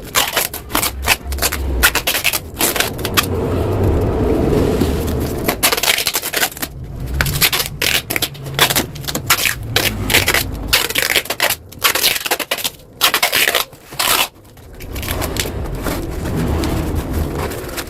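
Metal being worked on a motorcycle exhaust muffler: irregular scraping and crackling with rapid clicks, broken by a few short pauses.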